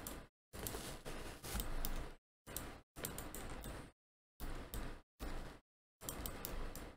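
Computer mouse and keyboard clicks in short bursts, each broken off into dead silence between them.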